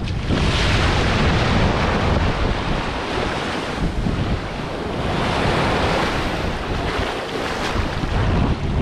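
Shallow beach surf breaking and washing in over the sand, rising and falling in two surges.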